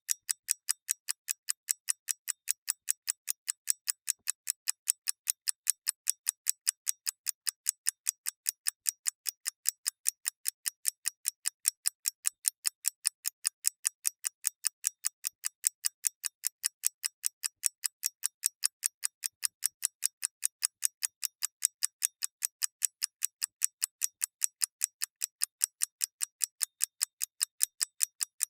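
Mechanical clockwork ticking, a fast, even train of crisp ticks at about five a second.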